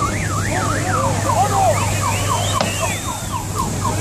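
Police siren sweeping quickly up and down, then switching about a second in to rapid repeated downward chirps. A second siren's slower rising-and-falling swoops sound above it, over a steady low hum.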